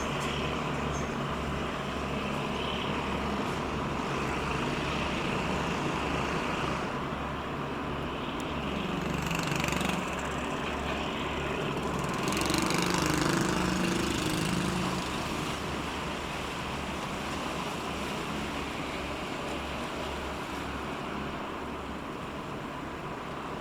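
A boat's diesel engine running with an even low throb. It grows louder for a few seconds about halfway through.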